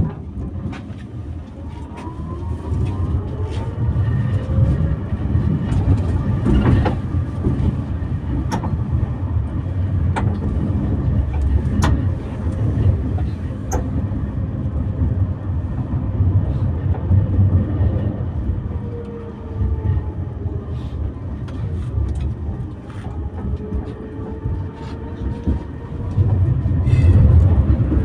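Electric tram running on street track, heard from inside the front of the car: its traction motors whine up in pitch as it pulls away and speeds up, over a steady rumble of wheels on rails, with a row of sharp clicks about every second and a half. Later the motor whine falls and climbs again, and near the end it gets louder as another tram passes close alongside.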